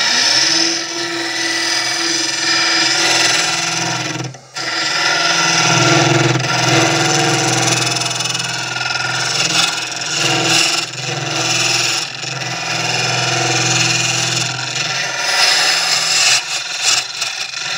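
Wood lathe running while a small ring hollowing tool cuts the inside of spinning end grain: a dense scraping hiss of shavings over the steady hum of the lathe. The sound breaks off briefly about four seconds in.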